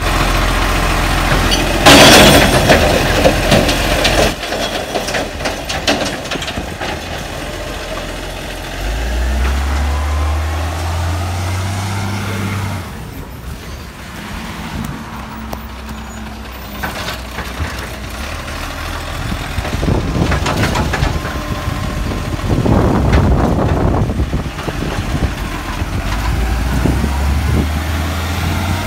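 Diesel side-loader recycling truck at work. The load from a bin crashes and clatters into its hopper a couple of seconds in, the loudest sound. Then the engine revs up with a rising drone as the truck pulls away, and air-brake hissing and mechanical noise come near the next bins.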